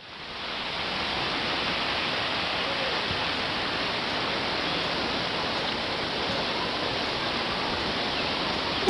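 Steady rushing of falling water, fading in over the first half second and holding even.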